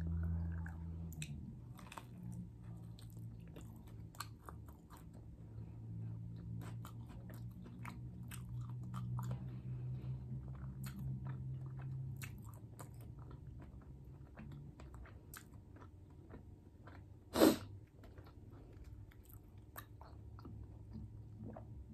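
Close-up chewing of food, with wet, irregular mouth clicks and smacks over a steady low hum. One brief, louder sound comes near the end.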